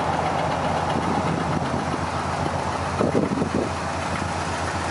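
1972 Oldsmobile Cutlass 442's V8 engine running steadily.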